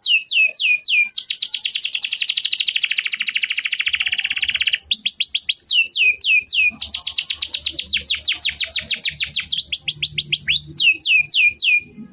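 Domestic canary singing a long song: two long, very fast trills, each set between strings of separate downward-sweeping whistles. The song breaks off abruptly near the end.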